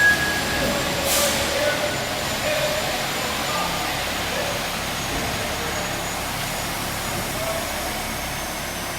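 Heavy truck engine running steadily, with a short hiss of air about a second in.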